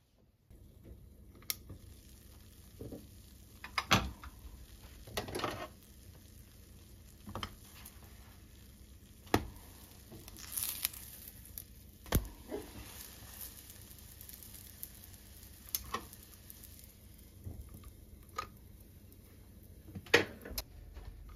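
Pancakes sizzling quietly in a frying pan, with scattered sharp clicks and knocks from a spatula and the pan lid.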